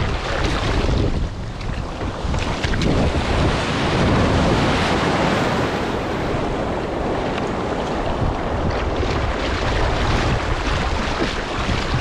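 Breaking surf and churning white water washing around a kayak in the shallows, with heavy wind rumble on the microphone. The wash swells loudest about four seconds in.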